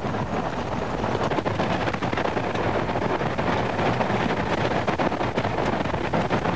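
Many horses galloping, a dense patter of hoofbeats over a steady rush of wind noise on the microphone.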